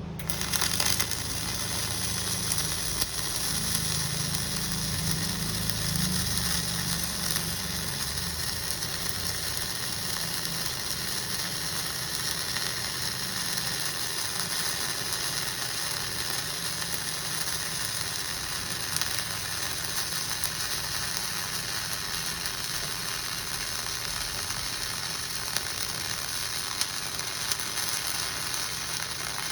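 Flux-core wire-feed arc welding: the arc strikes just after the start and sizzles and crackles steadily through an uphill filler pass on a T-joint. It runs evenly with little popping, which the welder takes as the sign that the weld is tying in well.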